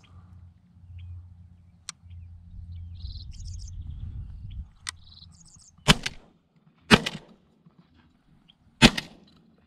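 Three shotgun shots, about a second and then two seconds apart. The first, a mini 'shorty' shell, misses, and the third brings the pigeon down. Before the shots come a low rumble and small birds chirping.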